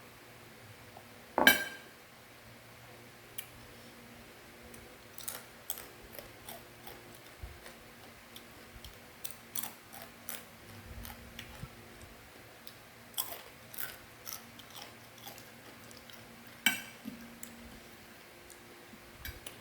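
Someone eating a crunchy fried macaroni snack: scattered crisp crunches and clicks of biting and chewing, the loudest about one and a half seconds in.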